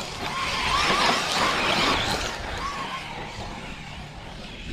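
Radio-controlled cars running on a race track, one swelling up as it passes close over the first two seconds and then fading away.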